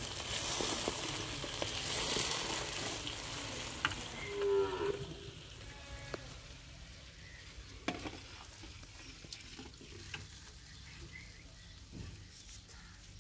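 Ghee-and-sugar syrup sizzling and bubbling in a brass karahi over a wood fire, with the metal ladle stirring and clicking against the pan. A short animal call cuts in about four seconds in, and after that the sizzle carries on more quietly.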